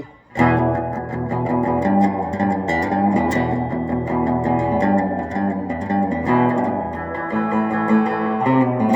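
Electric guitar playing a continuous run of picked notes and chords, starting about a third of a second in.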